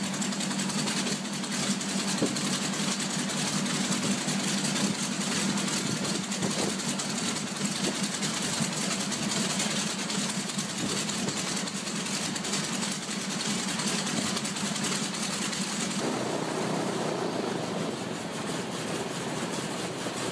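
Vintage radial aircraft engine running on a test stand, a steady rapid firing beat over a hum; the sound shifts in tone about sixteen seconds in.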